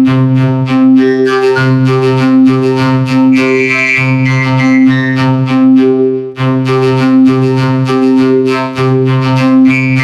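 Synthesizer music with a repeating bass and keyboard pattern at a steady bouncy beat.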